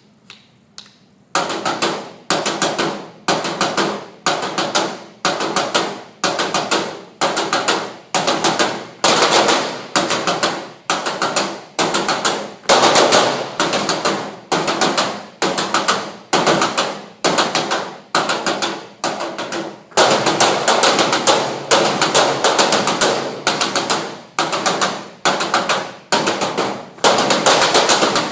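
Drums played in a fast, repeating pattern: short flurries of rapid strokes, about one and a half a second, that start after a few soft taps. The playing gets louder and fuller about twenty seconds in, and again near the end.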